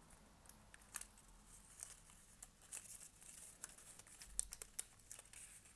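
Faint crinkling and rustling of die-cut cardstock and an adhesive sheet being handled and pressed down by hand, with scattered small irregular ticks.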